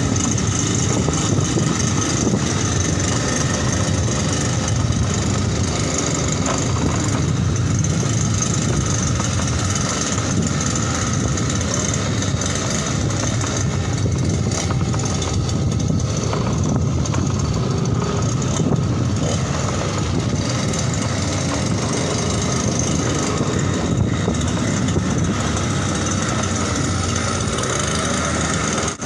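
Small 52 cc two-stroke brush-cutter engine on a homemade motorized bicycle, running steadily as the bike is ridden.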